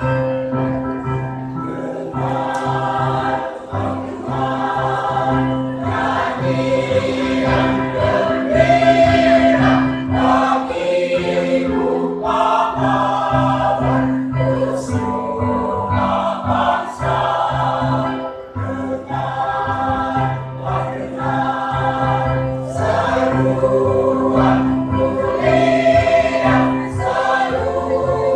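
A choir singing in harmony, several voice parts holding chords over steady low notes.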